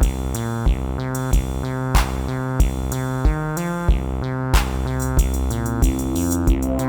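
Amiteque AR-110 analog drum synth playing a looping electronic drum pattern: a deep kick about every two-thirds of a second, clicky hi-hat-like hits and a few brighter crashing strikes, over sustained synth notes that change pitch.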